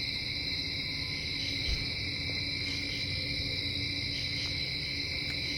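A steady chorus of night insects, trilling constantly at a fixed high pitch. A faint low hum joins about a second and a half in, and there is a soft thump just before two seconds.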